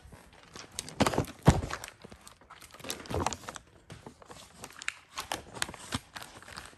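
Irregular footsteps and knocks, with the rustle of a handheld phone being moved about, as someone walks through a shop.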